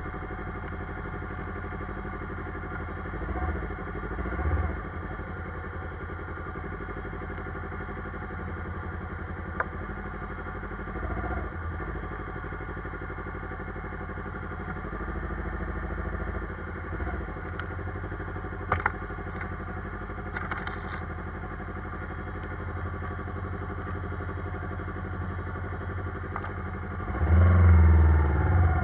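Yamaha sport motorcycle's engine idling steadily, with a few light clicks. Near the end it revs briefly, rising and falling.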